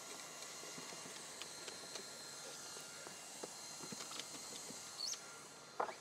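Handheld electric hot-air gun blowing with a faint steady hiss while it heats a self-adhesive bitumen gas membrane, with small scattered ticks as the hand roller presses the membrane down. A short squeak comes about five seconds in and a sharper knock just before the end.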